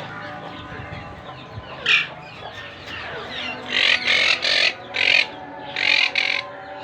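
Monk parakeets giving harsh, raspy squawks: one, then a quick run of several a couple of seconds later, over faint chirping from other birds.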